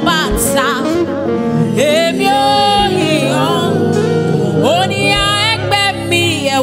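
Live gospel music: a woman's lead voice sings over a band, holding long notes with a wavering vibrato.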